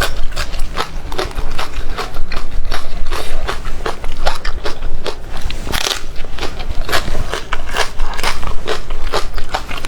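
Close-miked chewing of crunchy food: rapid, irregular crisp crunches and crackles that go on steadily throughout.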